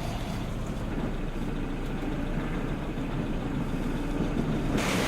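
Strong wind buffeting the microphone as a steady low rumble, with a louder, hissing rush of wind cutting in suddenly near the end.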